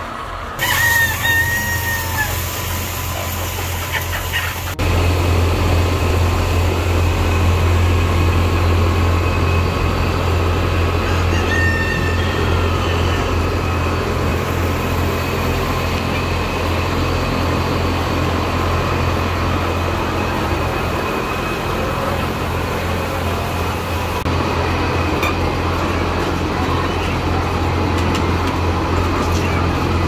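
Caged laying hens clucking and calling, with a steady low machine hum that starts abruptly about five seconds in.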